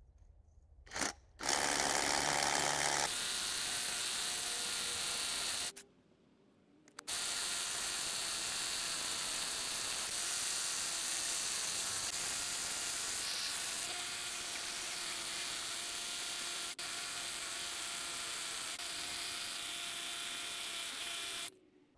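DeWalt DCH133 cordless SDS rotary hammer driving a 50 mm SDS core bit into hard quartzite, sped up five times so the hammering runs together into steady noise. The core cuts in after small holes have been pre-drilled around its edge. The sound breaks off for short silent cuts near the start and about six seconds in.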